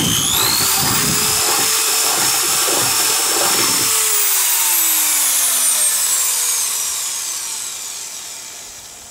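Corded Makita half-inch drill boring a large-diameter bolt hole through the steel floor of a pickup truck bed, its motor whining with rough cutting chatter. About four seconds in the chatter stops, and the drill winds down with a falling whine that fades out.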